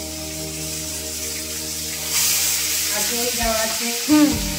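Marinated chicken and sliced onions sizzling in hot oil and ghee, the sizzle growing louder about two seconds in. Background music with held notes plays under it, and a voice comes in near the end.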